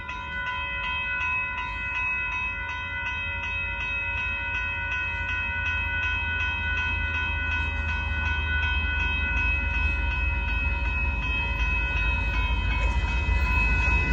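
Railroad grade-crossing bell ringing with a steady, rapid strike rhythm, over the low rumble of an approaching Union Pacific freight train that grows louder as it nears the crossing.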